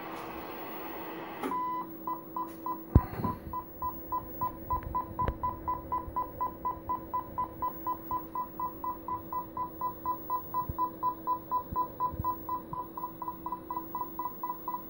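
A test tone from a Stalker 9 CB radio's speaker, beeping about four times a second over a steadier lower tone, as the receiver picks up a test signal from a Marconi radio test set for a signal-and-noise (SINAD) test. A single sharp knock about three seconds in.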